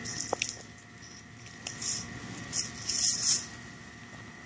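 Short hissing scrapes of a knife working at the head of a groundhog carcass on a wooden cutting board, in three bursts, the longest and loudest about three seconds in, with a few light clicks.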